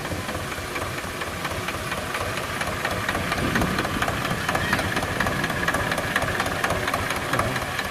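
Farm tractor's diesel engine running steadily with a rapid, even firing beat as it pulls a disc harrow through ploughed soil.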